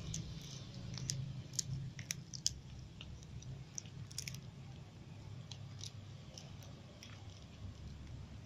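Several cats crunching puffed cracker sticks. The crisp crunches come irregularly, thick for the first four seconds or so and sparser after, over a steady low hum.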